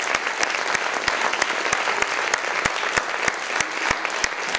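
Audience applauding steadily: many hands clapping together, with individual sharp claps standing out close by.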